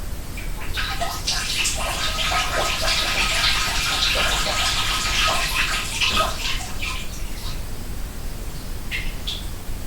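A person urinating into a toilet, heard behind a closed door: a steady splashing stream that tapers off after about seven seconds, then a couple of last drips near the end, over a steady background hiss.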